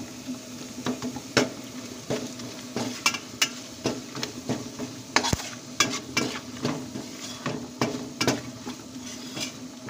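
A steel spoon stirring spice powders into hot oil in a stainless steel pan, scraping and clinking irregularly against the pan, with the oil sizzling.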